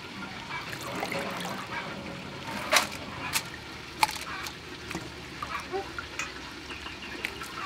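Hands swishing and squeezing glass noodles in water in a stainless steel bowl, with a wet splashing and trickling, and a few sharp clicks around three to four seconds in.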